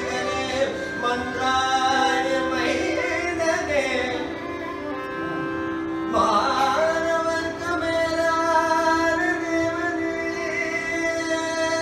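Carnatic vocal music: a male singer draws out a slow, unmetered melodic line with long held notes and ornamented glides. A violin follows his melody over a steady drone, and a fresh phrase begins about six seconds in.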